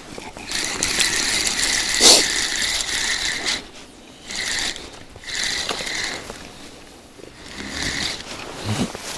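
Fishing reel being cranked in several short bursts, its gears whirring, with a sharp knock about two seconds in.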